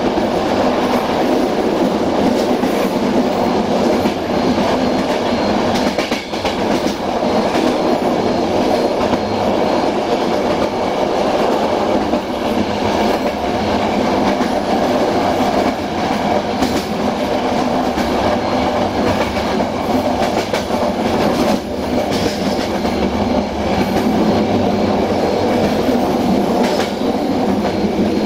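Passenger train coach running along the track, heard from on board: a steady rolling rumble with the wheels clicking over rail joints now and then.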